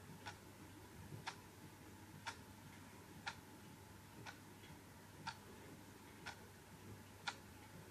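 Clock ticking faintly and steadily, about once a second.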